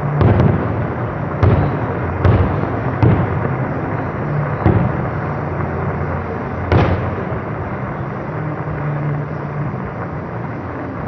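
Aerial firework shells bursting: about six sharp bangs, spaced roughly a second apart and the last about seven seconds in, over continuous dense noise.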